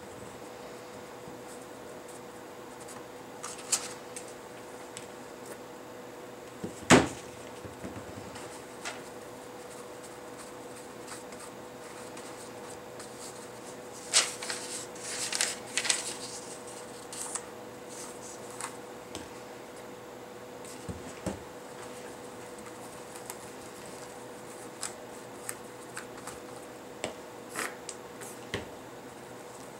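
Scrapbook paper being picked up, rustled and pressed onto a canvas, with small clicks and taps of crafting tools. There is one sharp knock about seven seconds in and a burst of paper crinkling around the middle, over a faint steady hum.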